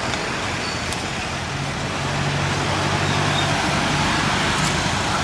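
Cars passing on the road close by. One engine's low hum swells through the middle and fades, over a steady hiss of traffic.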